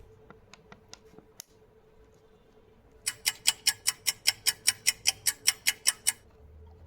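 A quick, even run of sharp clicks, about five a second, starting about three seconds in and lasting about three seconds, after a few faint scattered ticks. A faint steady hum lies underneath.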